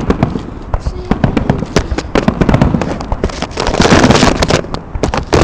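Fireworks going off in rapid succession: many sharp bangs and pops one after another, with a dense stretch of crackling a little past the middle.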